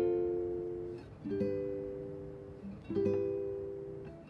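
Music: slow plucked-string chords, three in all, a new chord about every second and a half, each left to ring out and fade.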